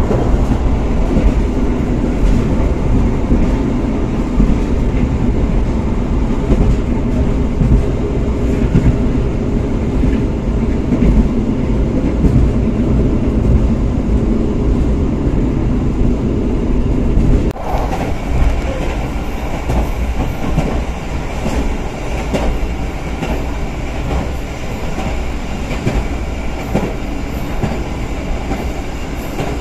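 Running noise inside a passenger train coach at speed: a steady rumble of wheels on the rails with clickety-clack. About two-thirds of the way through the sound changes abruptly and becomes lighter and more rattly.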